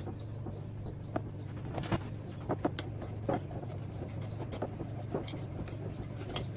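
Ripe bananas being mashed with a fork in a glass bowl: irregular soft squishes and light taps and clinks of the fork against the glass, over a steady low hum.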